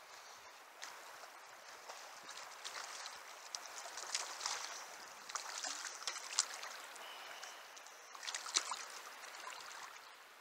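River current rushing and splashing around a wading angler, with a run of sharp splashes at the water's surface about four seconds in and again about eight seconds in.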